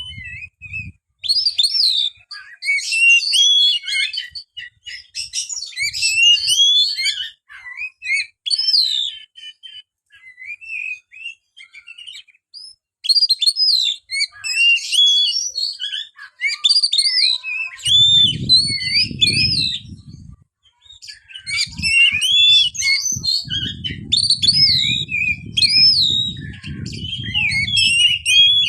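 Oriental magpie-robin (kacer) singing: a run of varied, sliding whistled phrases broken by short pauses. A low rumble comes in under the song for a couple of seconds about two-thirds of the way through and again near the end.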